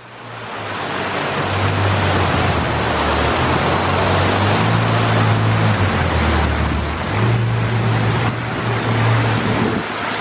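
Ferrari F12 Berlinetta's V12 running at low revs as the car rolls slowly. The engine note rises and falls a few times with light throttle, over a steady rushing noise.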